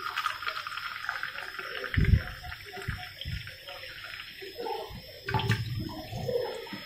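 A thin stream from a kitchen tap runs into a hollow pitcher-plant pitcher held under it, rinsing it out, and spills into a steel sink. Dull thumps of handling come about two seconds in and again near five and a half seconds.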